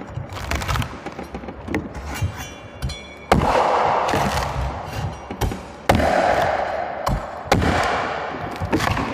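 Blade blows chopping coconuts: a series of sharp chops and knocks, the three hardest about three, six and seven and a half seconds in. Each hard chop is followed by a rushing noise that fades over a second or two.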